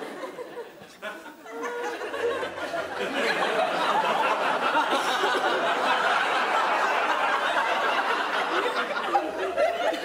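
Audience laughter, swelling from about two seconds in and holding steady and loud through the rest.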